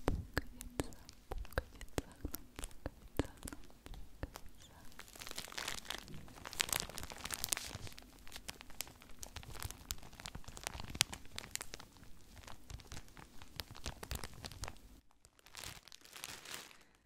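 Clear plastic packaging around folded pajamas crinkled, squeezed and rubbed close to the microphone, a dense run of sharp crackles that thins out near the end.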